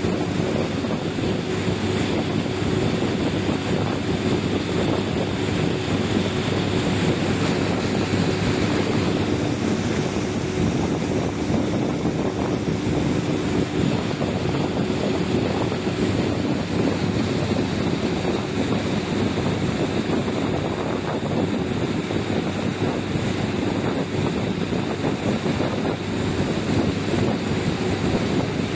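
A boat's engine running steadily, with water rushing and splashing along the hull and wind buffeting the microphone.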